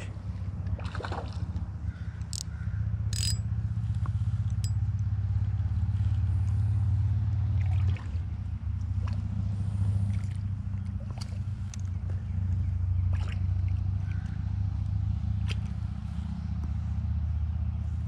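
A small fish being reeled in on an ultralight spinning reel, splashing at the surface, with scattered light clicks, over a steady low rumble.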